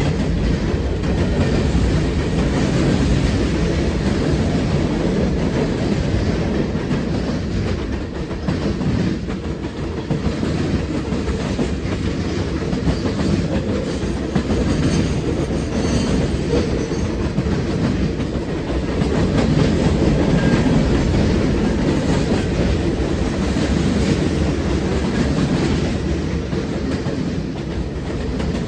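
CSX freight train cars rolling past with a steady loud rumble and clatter of wheels on the rails.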